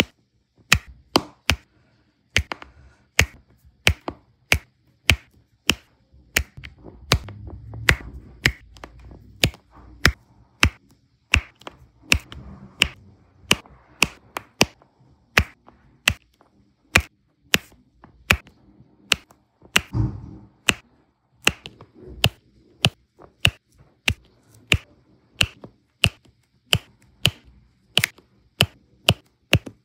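Diamond-painting drill pen pressing round resin drills one by one onto the sticky canvas, each placement a sharp click, about two a second. A low rumble of handling comes in around eight seconds in and again about twenty seconds in.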